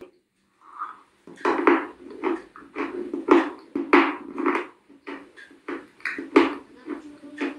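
Close-miked chewing of dry Kyrgyz edible clay: crisp crunches in the mouth, about three a second, starting after a short pause about a second in.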